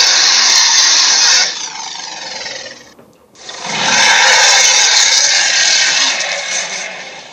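Two bursts of loud rushing hiss, each cutting in sharply. The first drops away about a second and a half in into a quieter, sweeping whoosh. The second builds up again after a short gap and fades out near the end.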